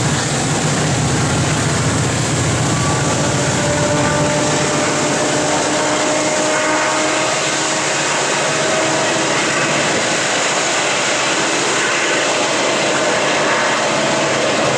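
Union Pacific freight train accelerating under power behind a lash-up of diesel-electric locomotives (SD70ACe, AC4400CW and SD70M): a loud, steady roar with a faint whine slowly rising in pitch. The deep rumble drops away about four seconds in.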